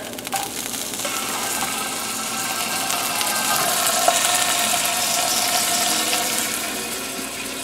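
Thin ground-beef burger patty sizzling in a nonstick frying pan, freshly flipped, a steady frying hiss.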